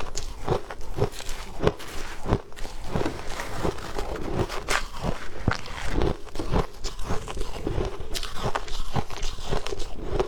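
A person biting and chewing ice close to the microphone: a continuous run of sharp crunches, about two a second.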